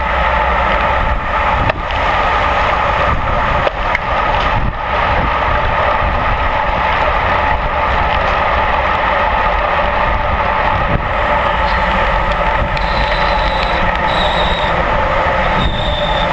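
Steady rushing wind and road noise on the microphone of a camera mounted on a racing bicycle riding in a bunch, with a few short high-pitched tones near the end.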